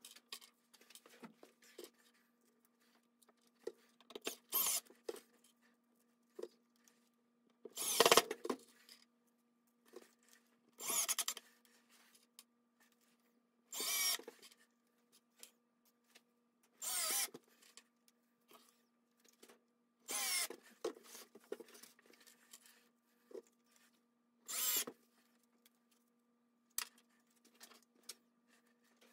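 Cordless driver running wood screws through black-iron pipe floor flanges into a wooden tabletop: seven short bursts about three seconds apart, the second one the loudest.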